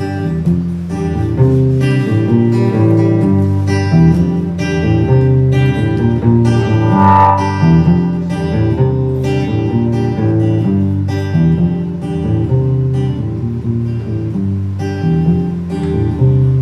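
Acoustic guitar strumming chords in a steady rhythm: the instrumental intro of a song, with no singing yet.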